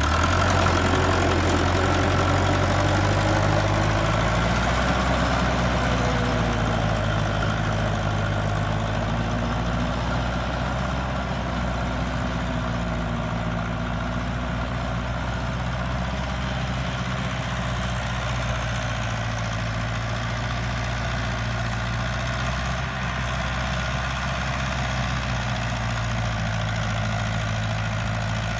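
Farmtrac 6055 tractor's diesel engine running steadily under load as it drives a rotavator through wet paddy soil. It is loudest at first and fades slightly as the tractor moves away.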